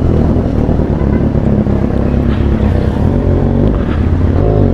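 Engine running steadily with a strange noise that the owner takes for a compression leak, typical of a holed or loose exhaust header. The engine's pitch shifts slightly near the end.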